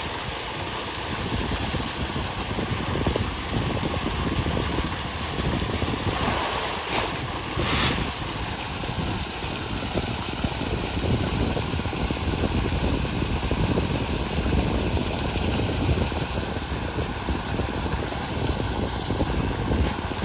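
Steady rushing and splashing of water pouring from a pipe into a fish pond, churned by a dense swarm of feeding fish, with a brief louder splash about eight seconds in.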